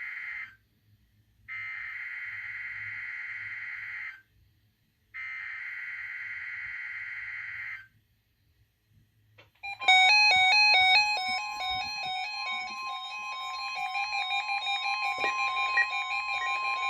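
NOAA Weather Radio SAME digital header bursts: the tail of one buzzy data burst, then two more of about two and a half seconds each, marking the start of the required weekly test. About ten seconds in, the steady 1050 Hz warning alarm tone begins, with several weather alert receivers beeping their alarms over it in a fast pulsing pattern.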